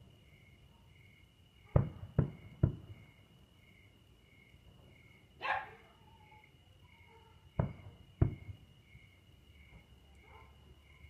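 Fireworks going off at a distance: three sharp bangs in quick succession about two seconds in, then two more near the end. A dog barks once between them.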